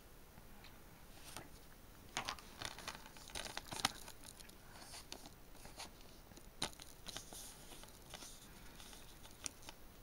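Hands handling a clear plastic Blu-ray case and a paper liner sheet: rustling and irregular small clicks and creaks of the plastic, loudest about four seconds in.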